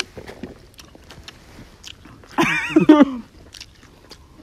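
Close-up eating sounds: scattered crunches and mouth clicks of people chewing. About two and a half seconds in, a short, loud burst of a person's voice with a rising and falling pitch.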